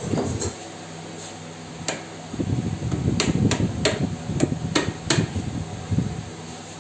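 Ball bearing being worked onto a fan motor's repaired shaft: a series of sharp metallic taps and clicks, about three a second, over a low rattle of metal on metal. The shaft was worn and has been punched to tighten the bearing's fit.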